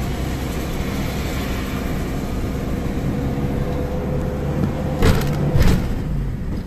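Car engine and road noise heard from inside a moving car in slow town traffic, with two short loud knocks about half a second apart near the end.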